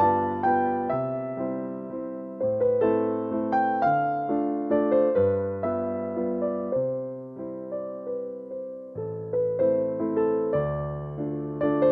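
Background music: a gentle electric piano playing a slow sequence of chords and melody notes.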